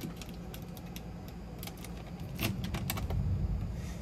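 Scattered light clicks and taps inside a car's cabin over a steady low hum, with a louder knock and rustle about two and a half seconds in.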